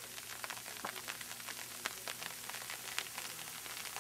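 Freezing rain coming down hard: a steady hiss thick with fine, irregular ticks as the drops strike and freeze on the snow and the truck.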